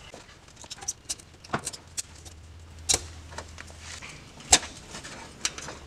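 Scattered clicks, scrapes and a few sharper knocks of a blade trimming the rubber off an Audi Q7 driveshaft center support carrier.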